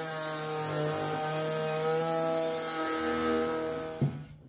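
Table-mounted electric router with a roundover bit running and cutting MDF, its motor pitch wavering and dipping under load over a hiss of cutting. It stops abruptly about four seconds in, ending with a sharp knock.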